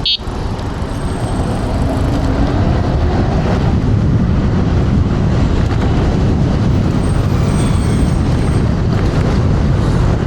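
Wind buffeting the rider's clip-on microphone during an electric scooter ride, heard as a loud, steady low rumble with no break.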